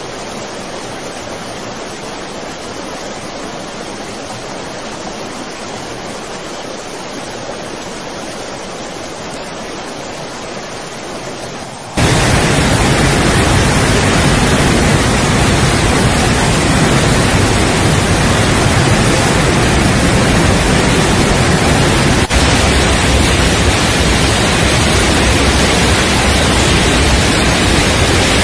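Steady rushing of muddy floodwater. About twelve seconds in it cuts to a much louder, rumbling torrent that holds steady.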